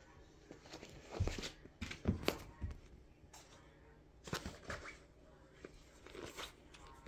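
Cat pawing, kicking and biting at a fabric catnip toy: four short bursts of scuffing and rustling with soft thumps. The loudest thumps come around two seconds in.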